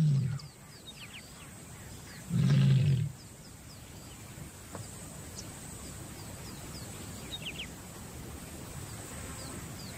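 Lioness in oestrus calling: a low, moaning call ends just after the start, and a second loud, low call of under a second follows about two and a half seconds in. These are the calls of a female ready to mate, drawing males to her.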